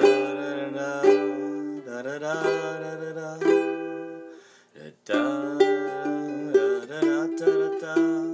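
Music: chords strummed on a small plucked string instrument, each strum ringing out and fading, with a brief gap about halfway through.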